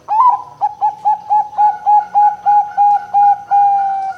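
Zebra dove (perkutut, Bangkok type) singing one song: a rising opening note, then about a dozen short clipped coos at about four a second, ending in a long held coo that sags slightly in pitch.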